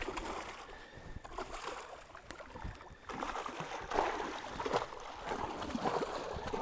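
Muskie thrashing at the surface beside the boat while being played into the landing net: irregular splashing, light at first and heavier from about three seconds in.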